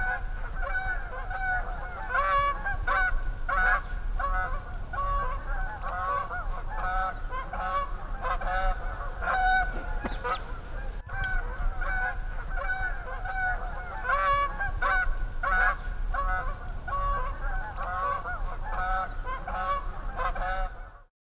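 Geese honking, many short overlapping calls, as a marsh ambience bed, with a brief break about halfway through.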